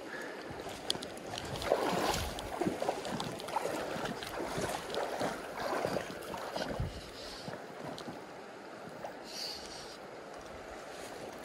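Shallow creek water running over stones, with irregular sloshing and rustling while a hooked trout is played in on a fly line.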